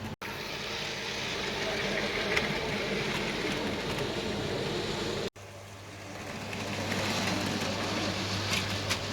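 Model railway train running along the layout track, heard in short clips joined by abrupt cuts about 0.2 s and 5.3 s in. After the second cut it grows louder for about two seconds.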